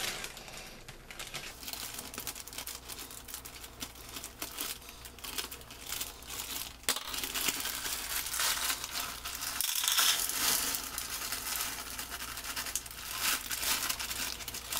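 Plastic bag of frozen peas crinkling as it is handled and torn open, then the peas tipped into a small saucepan.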